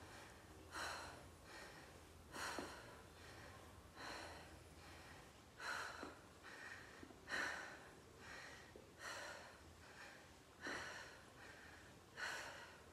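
A woman breathing hard under exertion: about eight short, forceful exhalations, roughly one every second and a half, in time with her exercise repetitions.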